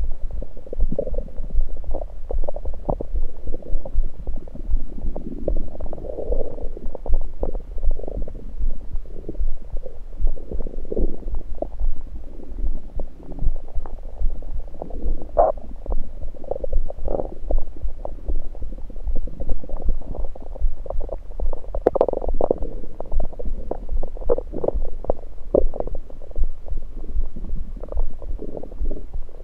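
Human stomach gurgles picked up through a USB electronic stethoscope on the belly: irregular bubbling gurgles and short pops, with the strongest gurgles about halfway through and about three-quarters in, over a steady low hum. The uploader puts them down to liquid moving in the gut rather than digestion.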